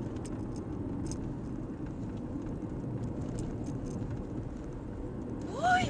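Steady low rumble of a car's tyres and engine heard from inside the cabin while driving, with a few faint clicks. Just before the end a short pitched sound rises and falls.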